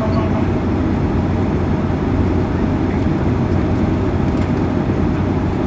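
Steady low cabin rumble inside a Boeing 767-300ER taxiing on its jet engines at low power, with a faint steady hum running through it.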